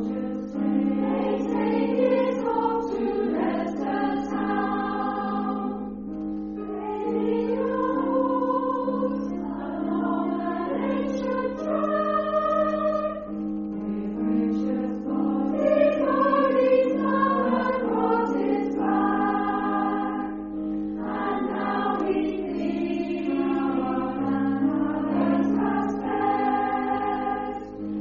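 A choir singing, with the upper voices moving over a steady held low note.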